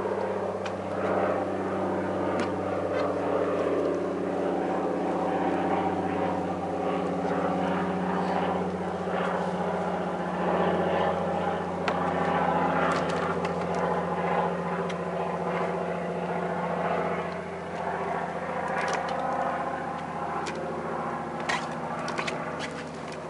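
Small engine running steadily at idle on a ramp-mounted kayak launcher, with a few light knocks near the end.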